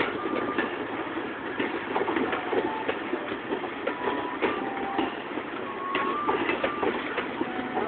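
Passenger train coaches rolling past close by: a steady rattling rumble of wheels with many rapid clicks and clacks, and a few brief high tones scattered through it.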